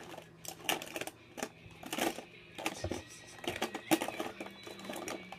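Irregular light clicks and taps as makeup tools and containers are handled, over a faint steady hum.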